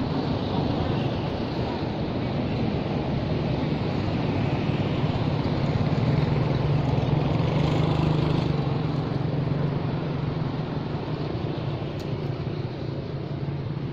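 Steady low rumble of background noise, swelling slightly around the middle and easing toward the end, with a faint click near the end.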